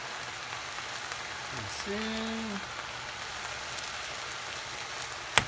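Diced zucchini, corn, tomato and onion sizzling steadily as they sauté in a skillet, with one sharp click near the end.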